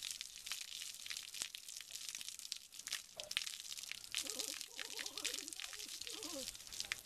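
Water from a garden hose splashing and pattering over a horse's wet head, a steady crackle of spray and drips. About four seconds in, a soft wavering pitched sound joins it for about two seconds.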